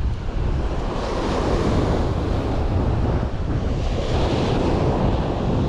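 Ocean surf washing onto a beach, swelling up twice, with wind rumbling on the microphone.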